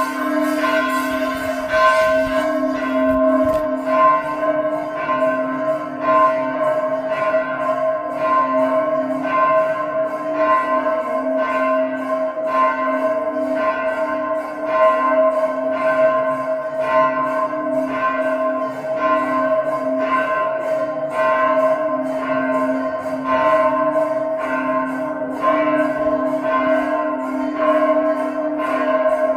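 Temple bells rung continuously in a rapid, even pealing, each stroke renewing a steady, overlapping ring of several pitches.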